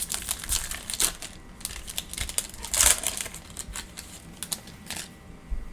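Foil wrapper of a 2021 Mosaic football card pack crinkling and being torn open by hand, with a loudest rip just before three seconds in.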